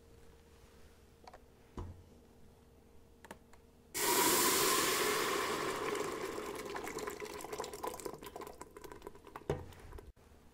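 Blended green-chile sauce poured from a blender jar into a large steel pot. The pour starts suddenly about four seconds in with a loud splashing rush and thins out over several seconds, with a short knock as the jar is shaken out near the end.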